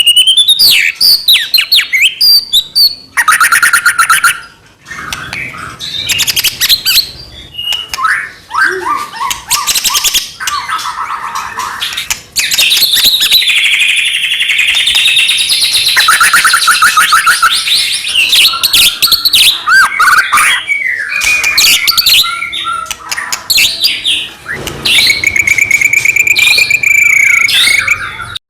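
White-rumped shama (murai batu) in full, vigorous song. It runs one quick phrase into the next: rapid repeated notes, trills, rising whistles and harsh rattling notes, with only a couple of brief pauses.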